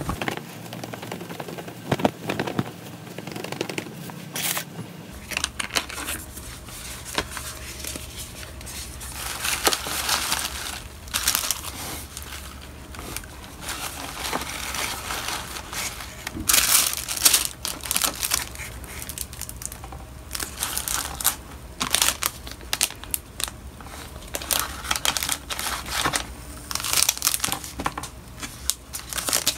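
Paper and plastic packaging rustling and crinkling in irregular bouts as items are handled and set into a cardboard mailer box filled with shredded kraft paper, with light taps and clicks among the rustles.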